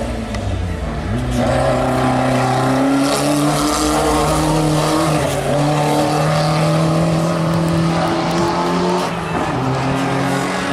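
Off-road 4x4 race car engine under hard acceleration. Its note climbs steadily and drops back twice, about five and nine seconds in, as the driver shifts or lifts.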